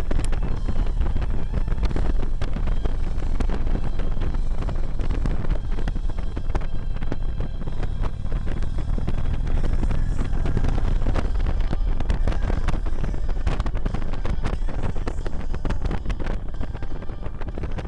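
Wind buffeting the microphone of a sunglass camera on a moving motorcycle, a steady rumbling rush with the motorcycle's engine running underneath.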